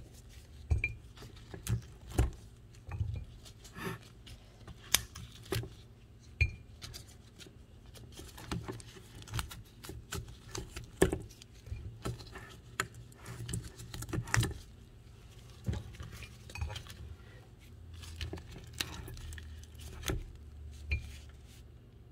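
Raw chicken feet being handled in a metal colander, knocking and clinking against the metal in irregular clicks.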